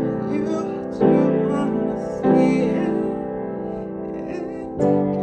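Piano chords, struck three times about a second or so apart and each left to ring and fade.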